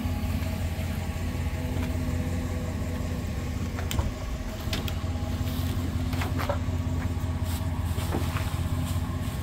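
Pickup truck engine idling with a steady low hum, with a few light knocks and crinkles of plastic wrap as the kayaks are handled in the truck bed.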